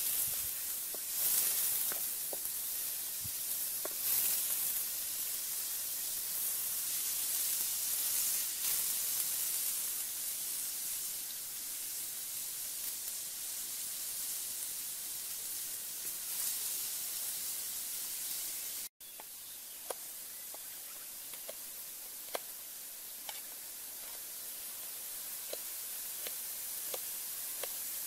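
Grubs sizzling in a metal wok over a wood fire, stirred with a wooden spatula, with a few sharp scrapes and knocks in the first seconds. About two-thirds of the way through the sound cuts; after that comes a quieter hiss and a series of short taps of a knife cutting chilies on a bamboo tube.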